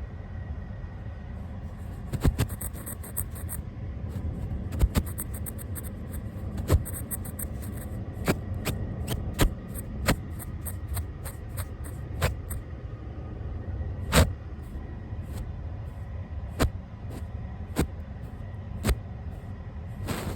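Brush bristles sweeping directly over a camera and its microphone: a low rustling rumble broken by sharp scratchy clicks, irregular, about one or two a second.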